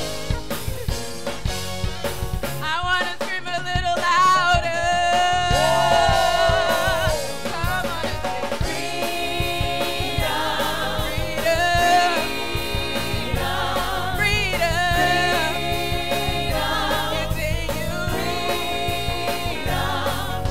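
Live upbeat gospel worship song: a lead singer and backing vocal team singing into microphones over a full band with drum kit.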